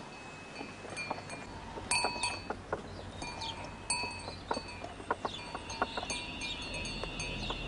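Small bells ringing and clinking at irregular intervals, with scattered knocks and clatter, like the harness bells and wheels of a horse-drawn farm cart on the move.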